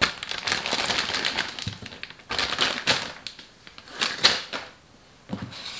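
Clear plastic zip-lock bag crinkling and rustling as cubes of raw steak are dropped into it, in a run of short crackly strokes that pauses briefly about five seconds in.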